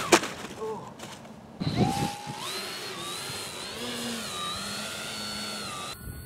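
Small electric RC aircraft motor and propeller whining. About two seconds in it spools up with a quick rising pitch, then runs on with the pitch wavering as the throttle changes. A sharp click comes right at the start.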